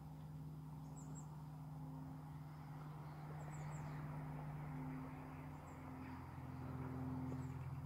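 A motor running steadily in the background, a low hum that swells a little now and then, with a few brief, faint high bird chirps.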